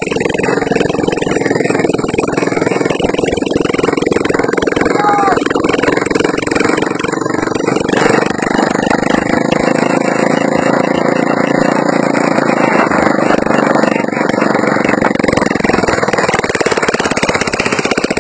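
Motorbike engine mounted on a homemade wooden cart, running steadily as it drives the cart along.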